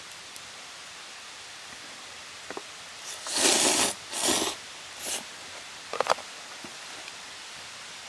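A person slurping instant yakisoba noodles in three short bursts, then a couple of sharp clicks about six seconds in as the plastic tray and chopsticks are set down on the wooden slat table. A steady hiss lies underneath.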